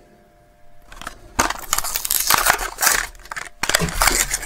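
Plastic blister and card backing of a Matchbox diecast car's packaging being torn and crumpled open, a crinkling and crackling with many small snaps that starts about a second and a half in.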